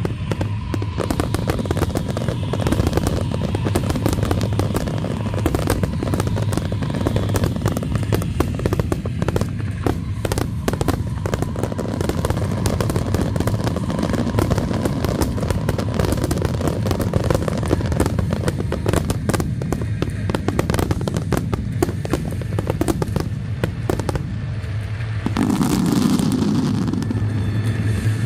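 Fireworks display: a rapid, near-continuous volley of bangs and crackles from aerial shells bursting.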